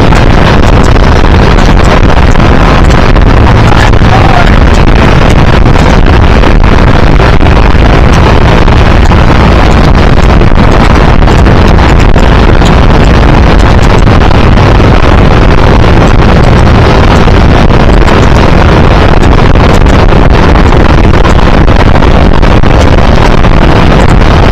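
Loud, steady rush of wind buffeting the microphone over the drone of a motorboat running at speed, with its churning wake underneath.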